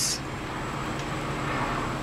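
Steady background hiss and hum of room noise, with no distinct event.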